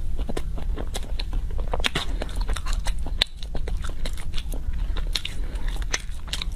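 Close-miked chewing of a soft chilled filled bread (ice bread): a dense run of small wet mouth clicks as it is chewed, over a steady low hum.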